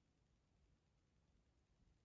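Near silence: faint, steady low room noise.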